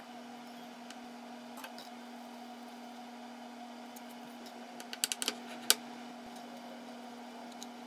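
Light kitchen taps and clicks of a wooden spoon and tableware as rice is scooped and spread for leaf wraps, over a steady low hum. A quick run of taps about five seconds in ends in the loudest click.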